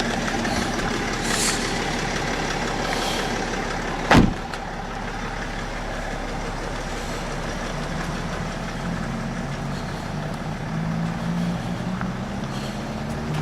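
Steady road traffic and vehicle engine noise, with a single sharp thump about four seconds in.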